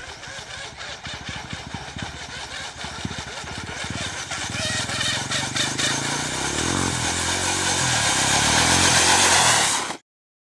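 Electric RC truck hydroplaning across a pond: its brushless motor running flat out with the hiss of water spray, growing steadily louder as it comes closer, then cutting off abruptly near the end.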